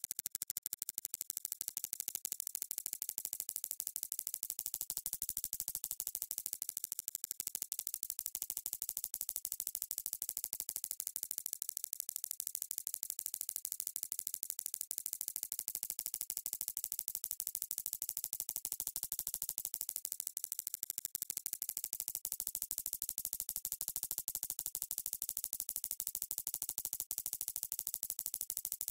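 Synthetic echolocation signal: a rapid, steady train of sharp, high clicks with their echoes off a swinging tennis ball. The echoes give the clicks a hollow colouring that sweeps up and down every few seconds as the ball swings nearer and farther.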